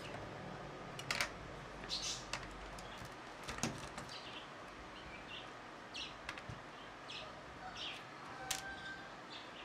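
Birds chirping in short calls every second or so, with a few sharp clicks and taps of small tools and parts handled on a workbench, the loudest click about a second in.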